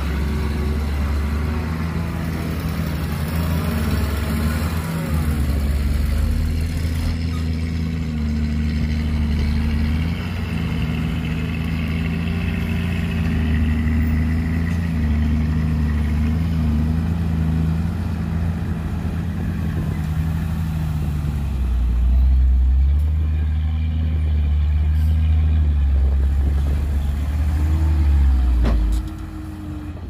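Heavy diesel engine of earth-moving machinery running under changing load, its pitch shifting, louder from about two-thirds of the way through, then dropping off sharply just before the end.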